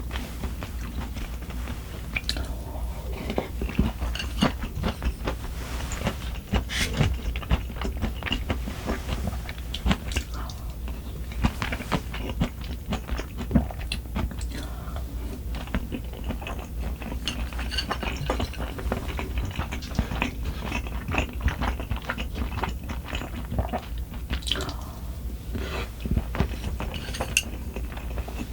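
Close-miked chewing and biting of braised kimchi and young-radish kimchi, with a steady run of small wet and crunchy mouth sounds and utensils clicking against the dishes.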